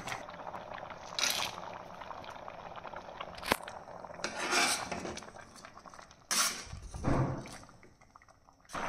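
A steel ladle stirs and scrapes through carrot halwa in an aluminium pressure cooker as it simmers in thickening milk. There are several scrapes and one sharp clink of metal on metal, with the mixture bubbling underneath.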